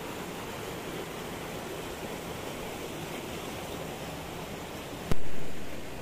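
Steady rushing of water from a mountain stream or waterfall. About five seconds in there is a single sharp, loud click that dies away quickly.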